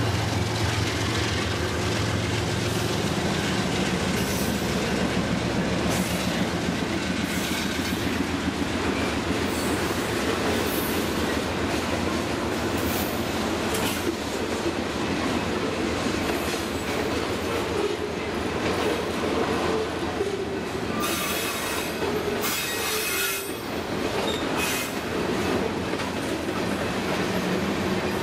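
Freight train rolling past close by. The trailing diesel locomotive's engine hum fades in the first couple of seconds, then a long string of tank cars and covered hoppers rumbles by with wheels clacking on the rails. Short high-pitched wheel squeals come and go, loudest about three-quarters of the way through.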